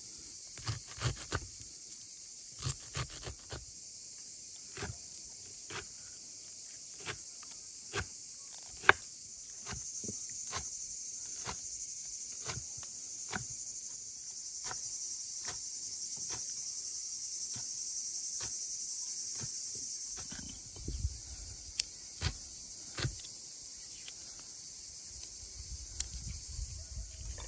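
Kitchen knife chopping fresh herbs on a wooden cutting board: sharp, irregular knocks about a second apart. Behind them runs a steady high chirring of insects, which grows louder in the middle.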